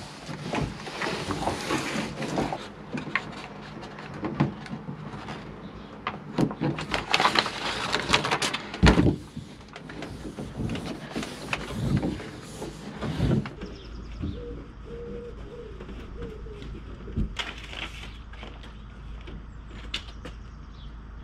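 Adhesive sound-deadening pads being fitted by hand inside a van's bare metal body: rustling, scraping and short knocks on the panels, with one sharp thump about nine seconds in. Around the middle this thins out to a low steady hum with a few faint clicks.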